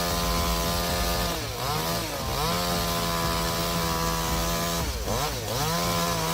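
Two-stroke chainsaw running at high revs with a steady high engine note. Its pitch dips and climbs back up twice.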